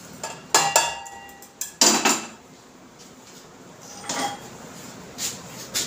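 Metal pan knocking and clanking against a small steel cup as dry-roasted coriander and cumin seeds are tipped into it: a few sharp metallic clanks with brief ringing, and quieter handling between them.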